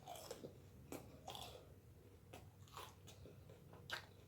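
Faint crunching of a Jollibee peach mango pie's crispy crust being chewed, a string of short crackly crunches.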